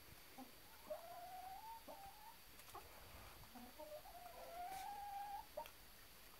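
Chicken giving two long, drawn-out calls about a second and a half apart, the first rising a little in pitch, with a few faint clicks.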